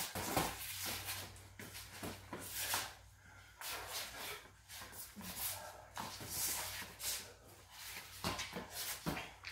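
Two boxers sparring in gloves: irregular bursts of sharp, hissing breaths with the punches, glove impacts and shoe scuffs on a concrete floor.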